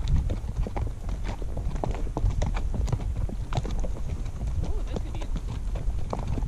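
Horses' hooves clip-clopping at a walk on a dry, rocky dirt trail, irregular hoofbeats from the ridden horse and the horses just ahead.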